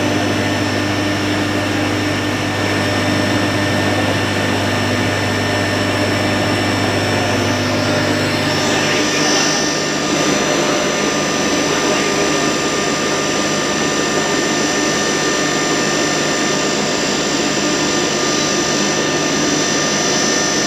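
Sugar pulverizer grinding mill running steadily, a loud even whir with a high whine. The pitch pattern shifts about nine seconds in.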